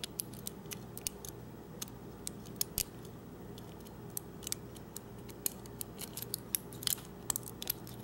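Irregular small metallic clicks and ticks of a hook pick working the pin stack of a U-Haul disc padlock held under tension by a thin wiper-insert tension wrench: single pin picking in progress. A faint low hum runs underneath.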